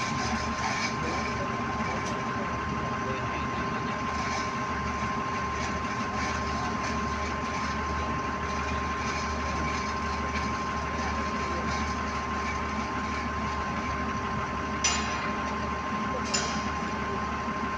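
Steady running machinery hum, like an engine idling, with a constant high tone over a low rumble; two short sharp knocks sound near the end.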